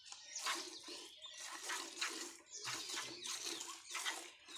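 Milk squirting from a cow's teats into a vessel as she is milked by hand, a rhythmic hiss of streams at about two to three squirts a second.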